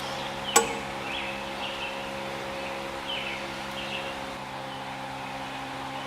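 A single sharp metallic clink of a hand tool against metal about half a second in, over a steady mechanical hum, with a few faint short chirps in between.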